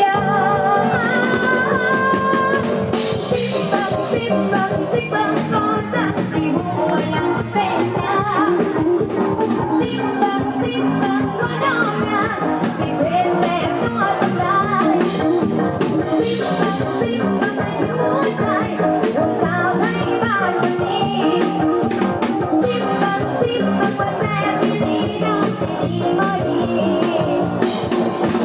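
Live band music with drum kit and electric guitar at a steady dance beat, played loud through a sound-truck PA.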